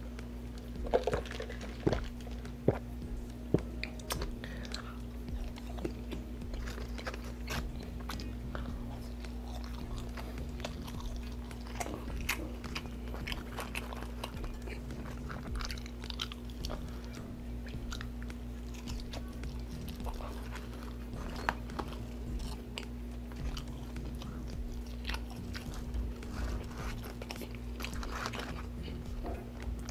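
Close-miked chewing and biting of McDonald's french fries, with many small mouth clicks. There are a few sharper knocks in the first few seconds, over a steady low hum.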